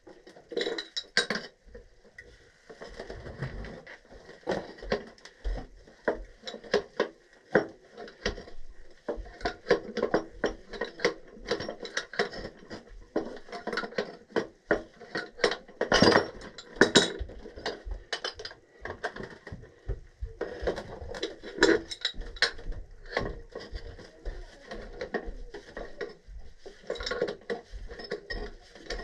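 Irregular metallic clinks, taps and clatter of hand tools and metal parts being handled during work on a furnace gas valve.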